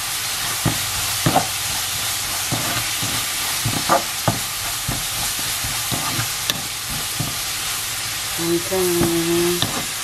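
Tiny dried anchovies sizzling in oil in a wok while a wooden spatula stirs and tosses them, the final stir as sesame seeds go in. A steady hiss, broken by irregular clicks and scrapes of the spatula against the pan.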